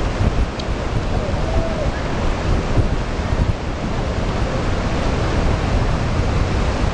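Rushing of a flooded river through rapids, a steady loud wash of whitewater, with gusts of wind buffeting the microphone.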